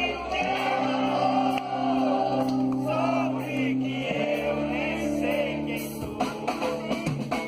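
Live rock band playing: held chords over a steady bass line, with voices singing along, and drum hits coming back in near the end.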